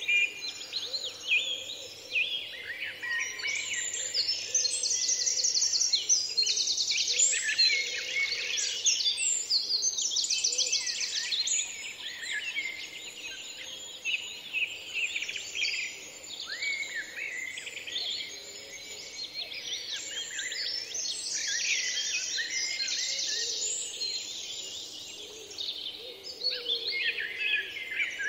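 Many small birds chirping and trilling over one another in a dense, continuous chorus that swells and fades in waves.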